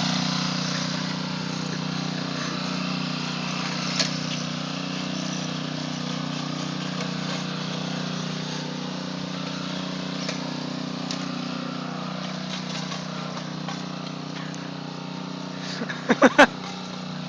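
Honda self-propelled push mower's small four-stroke engine running steadily under way, getting a little quieter over the first few seconds. A few short, loud pitched sounds come near the end.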